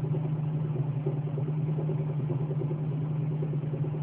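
Car engine idling as it warms up, with a faint repeating knock over the steady running, which the owner suspects comes from the air-conditioning compressor and its pulley.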